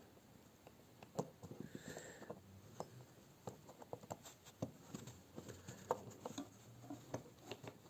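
Faint scattered clicks and light scratching of small steel hand tools working at a stuck part in a mechanical watch movement's keyless works, easing it loose.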